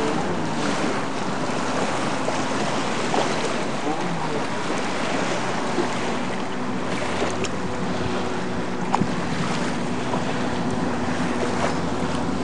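Yamaha WaveBlaster jet ski's two-stroke engine running and changing pitch as it turns and spins on the water, with the hiss of spray and wind on the microphone.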